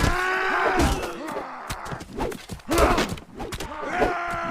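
Voices making drawn-out, wordless sounds that rise and fall in pitch, mixed with several sharp knocks and thuds.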